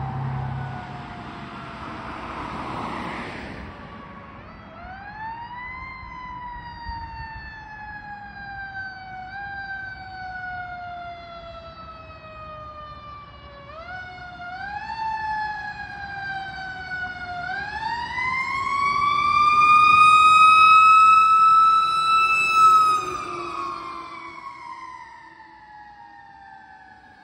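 Fire truck siren wailing, its pitch pulled up quickly and then winding slowly down, over and over. It grows loudest about twenty seconds in, where the pitch is held high, then slides down and fades as the truck moves away. A brief rushing noise sits under it near the start.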